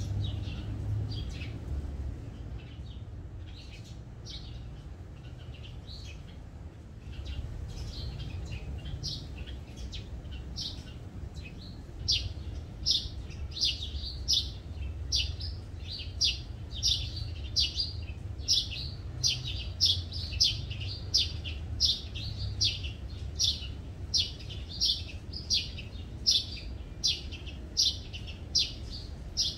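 A small bird chirping over and over in short, sharp, high chirps: scattered at first, then a steady run of about one and a half chirps a second from a little before halfway through.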